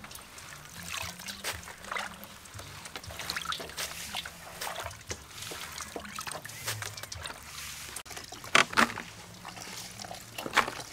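Hands scrubbing and swishing food in a stainless steel bowl of water, with irregular splashes, drips and trickles as handfuls are lifted out. Two louder sloshes come about eight and a half seconds in.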